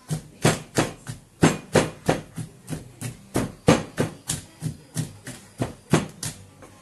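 Wooden pestle pounding boiled palm fruits in a mortar by hand, in steady strokes of about three a second, each a sharp thud on the soft fruit: the palm fruit being mashed to free its pulp for banga soup.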